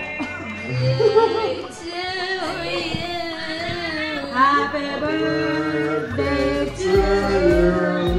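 A song: singing voices, a woman's the most prominent, held notes over a musical accompaniment.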